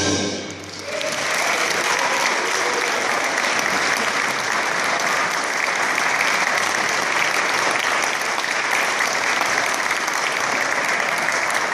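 The big band's final chord fades out, and about a second in the audience breaks into steady applause that keeps going.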